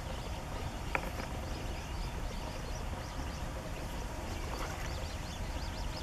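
Faint, rapid high peeping of Eurasian coot chicks begging for food, heard mostly in the second half over a steady low rumble, with one sharp tick about a second in.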